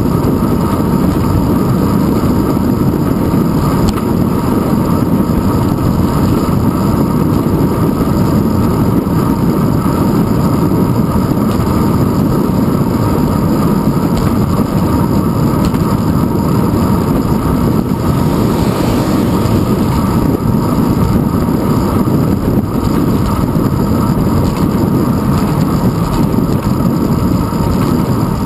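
Steady wind rush and road rumble picked up by a handlebar-mounted GoPro Hero 2 in its housing on a moving bicycle, loud and unbroken, with a brief higher hiss about two-thirds of the way through.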